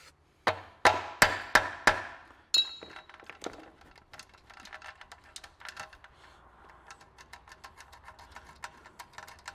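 Six sharp hammer blows on metal in about two seconds at the engine's timing end, the last one ringing. Then a long run of light metallic clicks and rattles as the broken timing chain and its sprocket are worked loose by hand.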